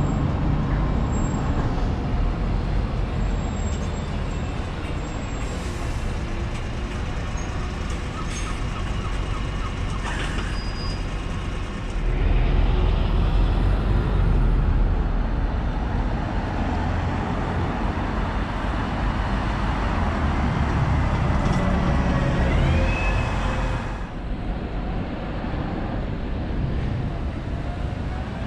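City road traffic: buses, coaches and cars passing, with diesel engine rumble and tyre noise that swells through the middle stretch. A brief rising whine comes about three quarters of the way through.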